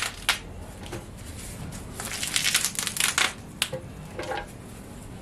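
Bitter leaves being torn into small pieces by hand, making crisp tearing and rustling in short bursts, the longest and loudest about two to three seconds in. There is a single sharp click about three and a half seconds in.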